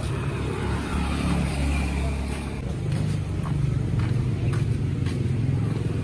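Low, steady rumble of a running motor vehicle engine, with faint footsteps on a dirt path about twice a second in the second half.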